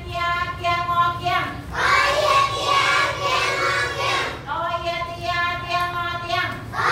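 A class of young children reading aloud in unison in a drawn-out, sing-song chant, typical of a Thai syllable-spelling reading drill. There are two long chanted phrases, the first at the start and the second from a little past the middle, with choppier spoken syllables between them.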